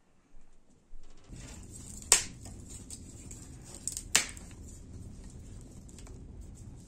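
Wood fire burning in an open clay hearth: a steady low rush of flames, starting about a second in, with sharp crackling pops from the burning sticks, the two loudest about two and four seconds in.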